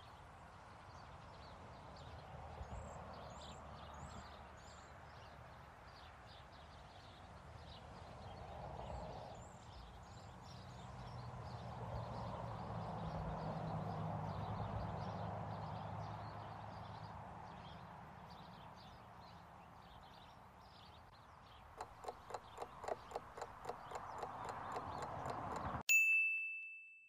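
Faint background ambience with a few high chirps, then a countdown clock ticking about three times a second and growing louder. It ends in a single bell ding that signals time is up.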